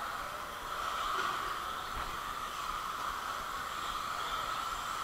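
Several radio-controlled off-road racing cars running on a track, heard as a steady whine and hiss with a faint wavering higher whine as the cars move about.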